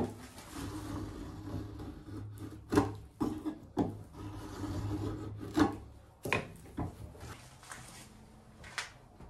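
Hand tool scraping and rubbing a small piece of wood, a rough scratchy sound for about six seconds with several sharper strokes, dying away in the last couple of seconds.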